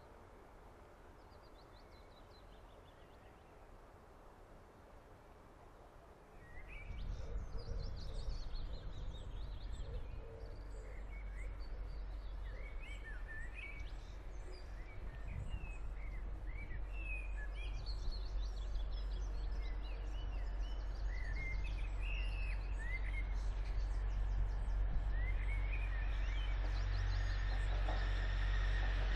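Birds chirping and singing lineside over a low rumble that slowly grows louder as a Grand Central Class 180 Adelante diesel multiple unit approaches. The first few seconds are faint and steady, before the sound jumps up at a cut to the lineside scene.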